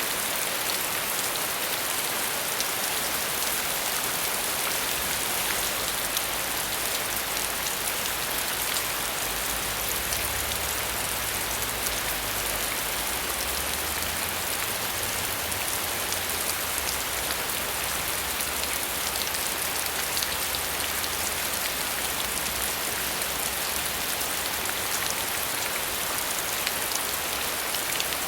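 Steady rain falling: a dense, even hiss with fine ticks of individual drops. A faint low rumble sits underneath from about ten to twenty seconds in.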